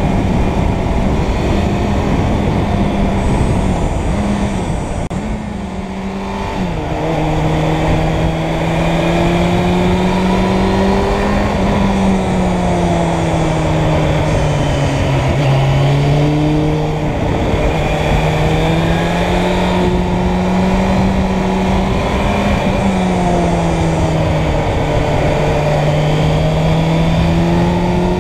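Suzuki Bandit 600's inline-four engine running under way, its note rising and falling with the throttle, with a drop in pitch and loudness about six seconds in. Wind noise rushes over the microphone throughout.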